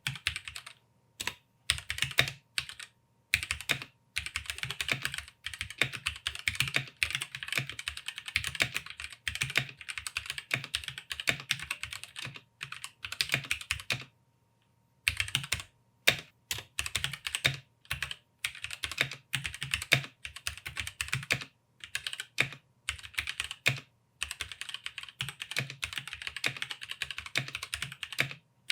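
Typing test on a Womier K66 mechanical keyboard with Gateron red switches: a fast, continuous stream of key clacks, with a break of about a second halfway through.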